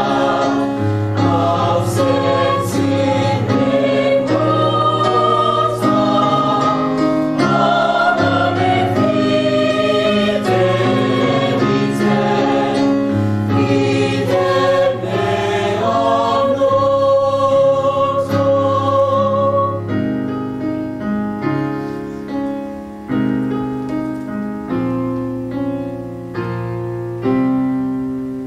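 Mixed high school choir singing in sustained harmony with piano accompaniment. About twenty seconds in the held voices stop and the piano plays on alone, its notes dying away.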